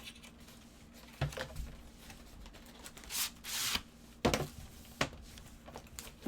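Card-break products being handled: a few sharp knocks and a brief sliding rustle about three seconds in, as a box is worked on and its autographed photos are handled.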